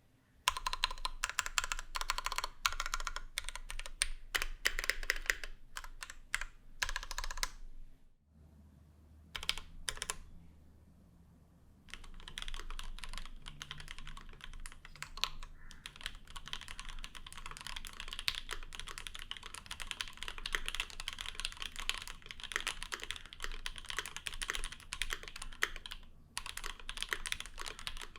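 Continuous typing on a Keychron Q1 aluminium mechanical keyboard. For the first eight seconds or so it has its stock Gateron Phantom Brown switches and ABS keycaps with all gaskets installed. After a few seconds of only scattered keystrokes, typing resumes about twelve seconds in on lubed, filmed SP-Star Luminous Cyber switches under GMK Fuyu keycaps.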